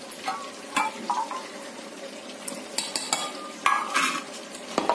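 Stainless-steel mixer-grinder jar and bowl being handled as blanched almonds and soaked poppy seeds go in: a few scattered metal clinks and knocks over a faint sizzle of meat frying.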